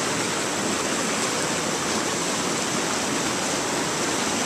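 Shallow river water rushing over rocks in a small rapid, a steady close-up rush.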